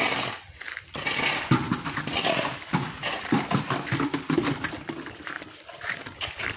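Hand-mixing concrete: a shovel scraping through the mix and metal buckets knocking as they are set down, over short voice-like calls.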